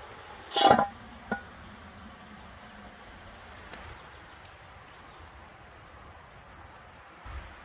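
A heavy cast-iron lid set down on a cast-iron pot: one loud ringing metallic clank, then a lighter clink about half a second later as it settles. After that, a low steady background with a few faint pops from the campfire under the pot.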